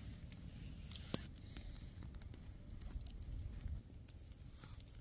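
Log campfire crackling quietly, with scattered sharp pops.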